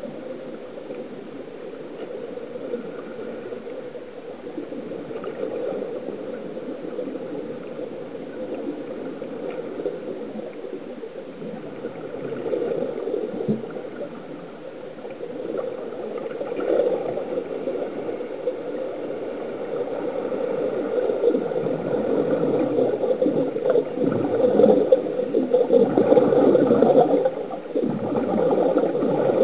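Air bubbling from sea-walking diving helmets, heard through the water as a muffled, steady bubbling rush that grows louder toward the end.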